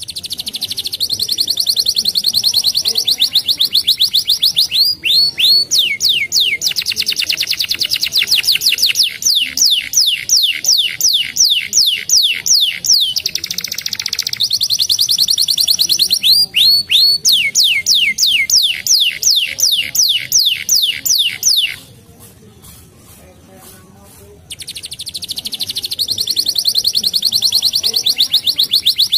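Domestic canary singing: long rolling trills of fast, evenly repeated downward-sweeping notes, changing from one tour to the next. The song breaks off for about three seconds roughly three quarters of the way through, then starts again.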